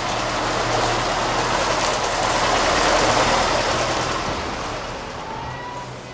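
A vintage Mercedes-Benz saloon car driving past, its engine and tyres swelling in loudness to about three seconds in and then fading away.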